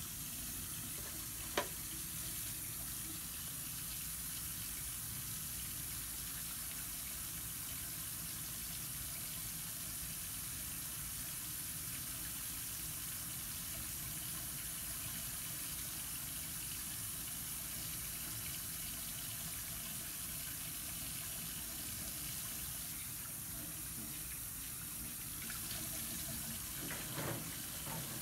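Sink faucet running steadily while hands are washed under the stream, with one sharp click about a second and a half in.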